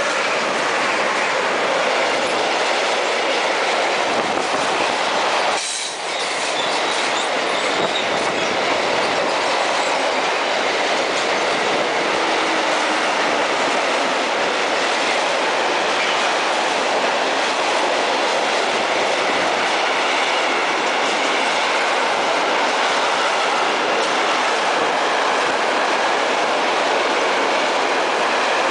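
Freight train of covered goods wagons, hauled by two DB Class 185 electric locomotives, rolling past at close range: a steady, loud rush of wheel-on-rail noise that dips briefly about six seconds in.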